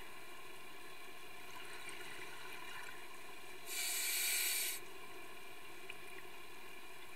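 Scuba diver breathing through a regulator underwater: one loud hissing breath about four seconds in, over a steady background hiss.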